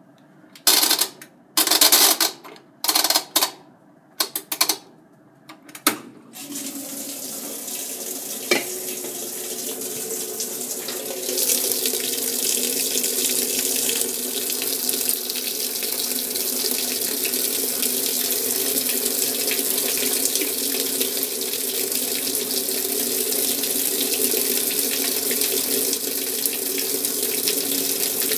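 Kenmore KLA7924FQ0 agitator washer filling with water for a rinse cycle with an empty tub. Water runs in steadily and gets louder about eleven seconds in. Several short loud bursts and a couple of sharp clicks come first, in the opening six seconds.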